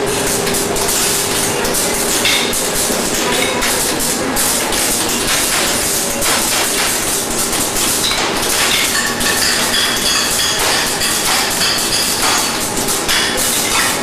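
Factory din of PVC label making machines: a steady noisy hum with dense, irregular clattering and clicking.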